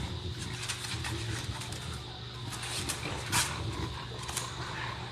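Bulldogs playing outdoors: faint scuffling and animal noises over a steady low hum, with a short sharp sound about three seconds in.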